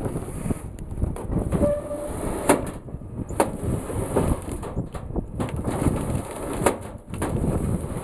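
Large forestry processor running close by: a heavy mechanical rumble broken by several sharp cracks and knocks as it works over felled logs.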